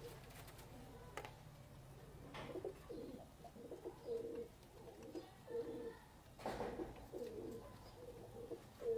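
Domestic pigeons cooing, a series of low coos repeating from about two seconds in, with a short rustle-like noise near the middle.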